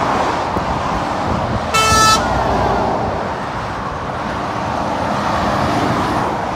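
Steady rush of dual-carriageway traffic passing below, with one short vehicle horn toot, about half a second long, about two seconds in.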